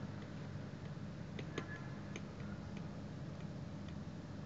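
Light, irregular ticks of a stylus tapping on a pen tablet while handwriting, over a faint steady low hum.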